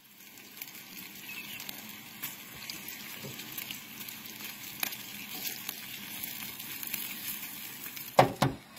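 Bacon rashers frying in a nonstick frying pan over a portable gas canister stove: a steady sizzle with small crackles and pops. Two loud knocks come near the end.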